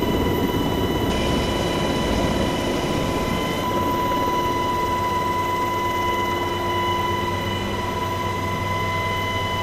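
UH-60 Black Hawk helicopter running, heard from inside the cabin: a steady loud drone of engines and rotor with a steady high-pitched whine over it.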